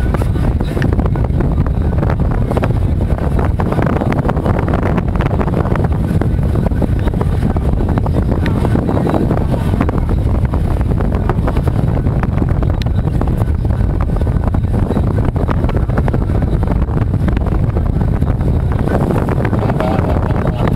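Steady wind rumble on the microphone over the noise of a small boat at sea, with frequent short buffets.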